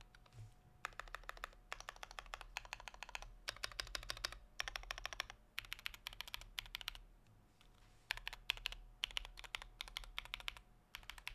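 Typing on a 75% mechanical keyboard: fast runs of key clicks broken by short pauses.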